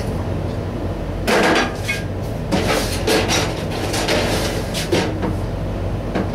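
Knocks and clatter of things being handled and moved about at a cluttered workbench, a run of them from about a second in until near the end, over a steady low hum.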